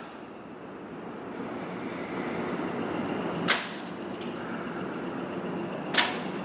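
Two sharp cracks, about 3.5 s and 6 s in, over a steady rushing noise that slowly grows louder and a thin, high, steady chirring of night insects.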